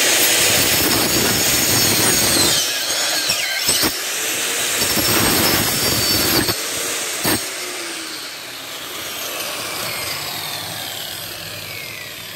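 Makita handheld circular saw running and cutting through a wooden slat. The motor's whine and the blade's rasp in the wood are loudest for the first six seconds; after that the whine falls steadily in pitch as the blade winds down.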